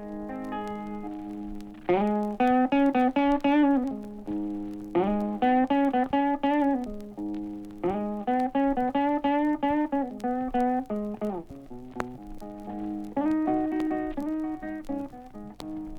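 Solo blues guitar played without singing: picked single notes with bent strings and bursts of quickly repeated notes over a low drone of bass notes. Faint clicks from the vinyl record's surface.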